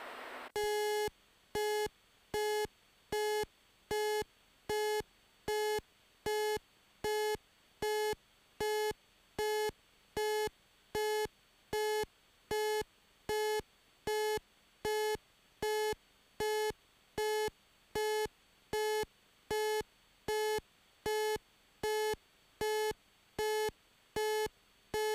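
Beechcraft Bonanza G36 landing-gear warning horn beeping steadily at about four beeps every three seconds, starting about half a second in. It sounds because the throttle is at idle with the gear still up during a steep descent.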